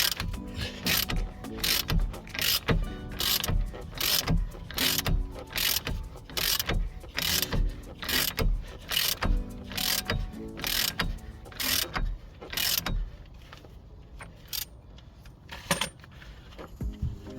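Ratchet wrench worked back and forth, with a rasp of pawl clicks on each stroke about twice a second, tightening a bolt that draws the new wheel bearing hub assembly into place. The strokes stop about 13 seconds in, leaving a few scattered clicks.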